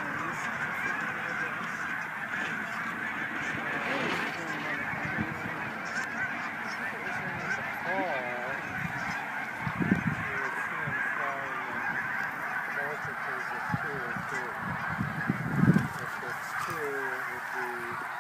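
A huge mixed flock of sandhill cranes and geese calling all at once, a dense, unbroken cacophony of overlapping rolling crane calls and goose honks. Two brief low rumbles cut through it, about ten seconds in and again near the end.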